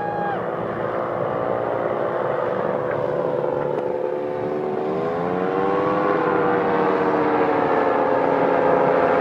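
Paramotor (powered paraglider) motor and propeller running steadily overhead. It grows louder as it approaches, and its pitch rises briefly about five seconds in before settling again.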